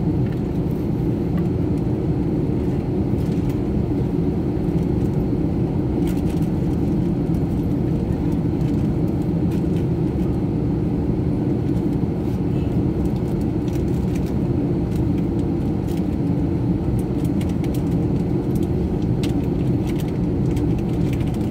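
Steady low rumble and hum of airliner cabin noise while the plane sits on the ground, with a few faint clicks now and then.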